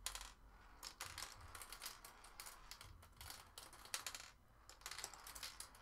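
Faint runs of light clicks as Turing Tumble marbles drop through the board's plastic parts and tumble down to the tray at the bottom. Each marble makes a short cluster of clicks, about one cluster a second.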